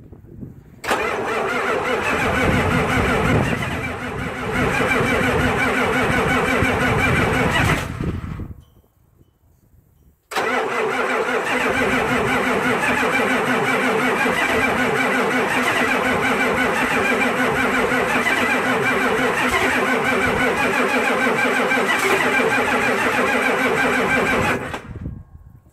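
A truck's engine being cranked for a cold start at about 8 degrees: one run of about seven seconds that stops abruptly, a pause of about two seconds, then a second, longer run of about fifteen seconds that cuts off near the end.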